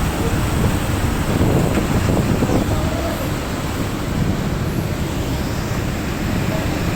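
A passenger ferry's engines running, with a steady rush of water and wind noise on the microphone.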